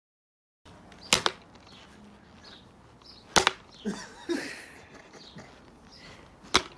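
Three sharp smacks a couple of seconds apart, from a man's spinning kicks striking a large plastic water bottle and its screw cap.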